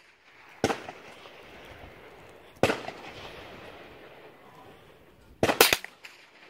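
Gunshots on an outdoor firing range: a single report about half a second in, another two seconds later, then two in quick succession near the end, each with a short echo.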